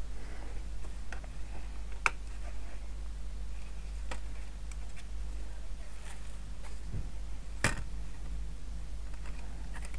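Scattered light clicks and taps of hard plastic model parts being handled and pressed together, as a plastic radiator housing is pushed onto its pegs under a model Spitfire wing to test the fit. Two of the clicks are sharper, one about two seconds in and one past the middle, over a steady low hum.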